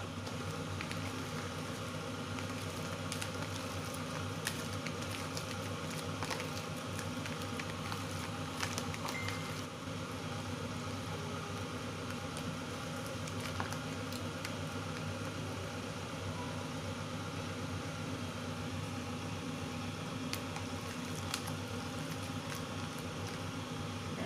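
A steady mechanical hum with faint scattered clicks as raw shrimp are turned over by hand in a plastic tub.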